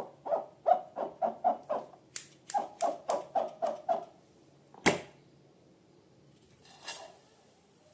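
A rapid run of short squeaky sounds, about four a second for roughly four seconds, then a single sharp snap about five seconds in and a fainter rustling sound near the end.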